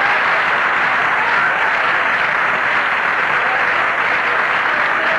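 Studio audience applauding steadily after a comedy punchline.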